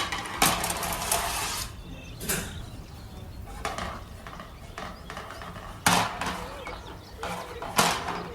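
Irregular clatter of metal parts and tools being handled on a workbench, with several sharp knocks and a scraping rush about half a second in that lasts about a second.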